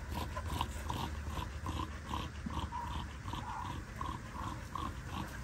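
Dogs play-growling during rough play, a steady run of short growls about two to three a second.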